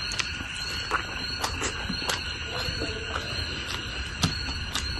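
Close-miked chewing and crunching of Manipuri singju salad, with irregular sharp clicks several times a second, over a steady background hiss.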